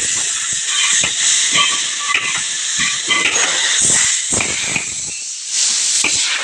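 Loud, steady hiss of compressed air, with scattered light knocks.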